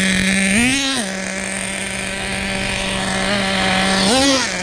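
Traxxas Pro 15 two-stroke nitro engine with an MIP Stinger exhaust running steadily on a driving RC truck, its pitch blipped up and back twice, about half a second in and again near the end, as the throttle is punched.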